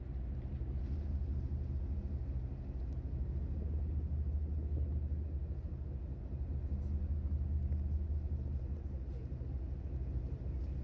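A low, steady rumbling drone with a faint hum, swelling a little in the middle and fading out at the very end.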